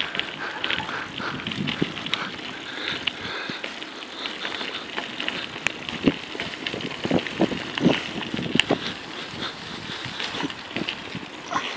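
Mountain bike tyres rolling fast over a loose gravel forest trail, a steady crunching hiss broken by irregular clicks and knocks of the bike rattling over stones.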